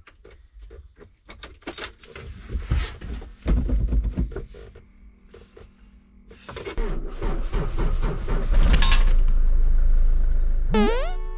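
Iveco Daily van's diesel engine being started: a few clicks and knocks, the starter cranking, then the engine catching about halfway through and running with a deep, loud drone that fades near the end. It is a routine start to keep the battery from going flat while the van stands for days.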